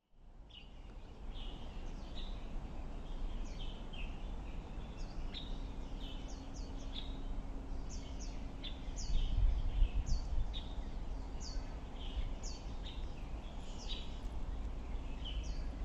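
Small birds chirping over and over in short, falling chirps, over a steady low rumble and a faint hum. The rumble swells louder for a moment about nine to ten seconds in.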